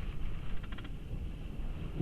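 Hurricane-force eyewall winds buffeting a truck, heard from inside the cab as a steady low rumble. A brief quick rattle comes about half a second in.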